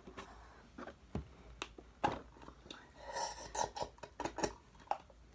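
Someone taking a drink: scattered clicks and knocks as the drink container is handled, then a run of short gulps from about three seconds in.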